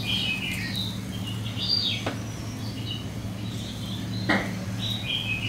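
Small birds chirping in short, quick calls over a steady low hum, with two sharp falling sweeps standing out about two and four seconds in.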